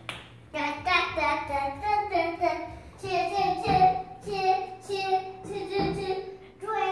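A young child singing wordlessly in a high voice: a string of changing syllables, then about three seconds in a run of drawn-out notes held on a nearly steady pitch.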